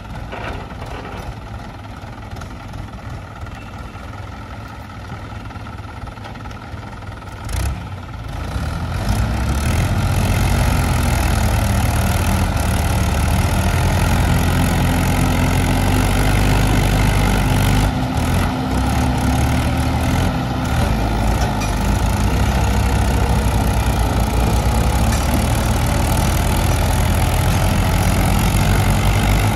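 Two Mahindra diesel tractors, a 415 DI and a 575 DI, pulling against each other on a chain. Their engines run steadily for the first eight seconds or so, with a short knock just before they rev up. They then hold loud at high throttle under heavy load.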